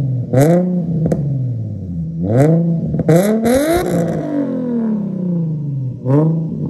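Infiniti G35's 3.5-litre V6 free-revving at a standstill through its exhaust: four quick throttle blips that rise sharply and fall back toward idle. The third is held longest and sinks slowly before the last.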